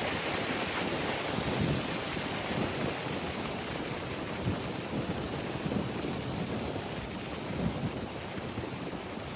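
Strong wind gusting against a Nortent Gamme 4 tent, the fabric buffeting with wind noise on the microphone. Low rumbling gusts swell every second or two.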